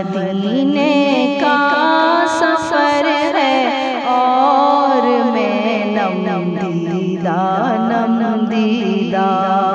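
Naat music interlude: wordless, gliding singing over a steady held drone, with a short run of sharp accents about two to three seconds in.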